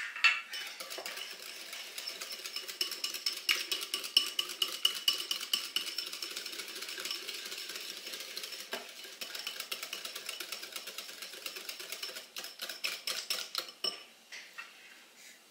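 Wire whisk beating a thick yogurt-and-mayonnaise sauce in a metal bowl: rapid, even clinking and scraping of the wires against the bowl, which stops about a second before the end.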